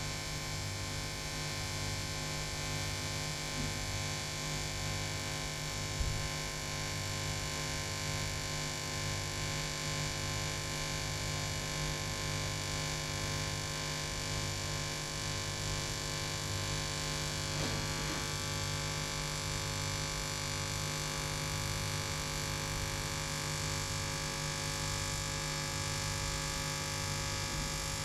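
TIG welding arc on stainless steel pipe: a steady electric hum that pulses evenly about one and a half times a second, with a single tick near a quarter of the way through.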